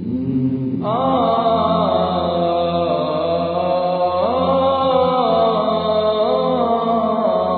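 A solo voice chanting in long held notes that slide slowly up and down in pitch, over a steady low hum.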